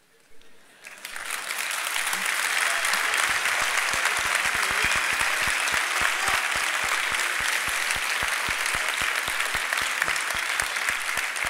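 A large audience applauding. The clapping swells in about a second in and then holds dense and steady.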